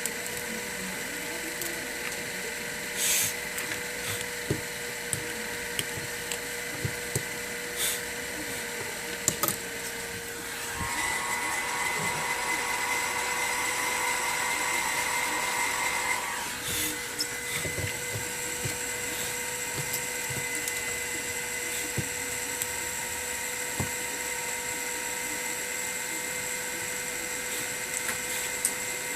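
Steady whine of a small electric motor, with occasional light clicks and taps. About eleven seconds in it runs louder and higher for some five seconds, then settles back.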